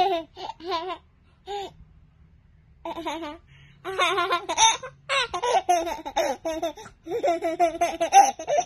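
A toddler laughing: a few short bursts, then after a pause of about a second a long, nearly unbroken run of high-pitched laughter.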